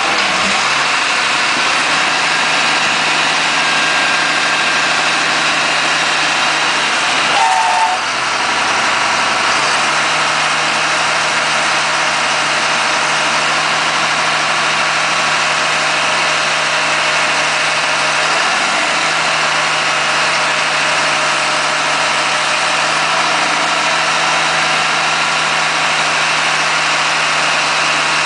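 Caterpillar 3116 inline-six diesel of a 1998 GMC C7500 running steadily at idle while it drives the Galbreath container handler's hydraulic lift arm. About eight seconds in there is a brief squeak and the engine note shifts for a moment.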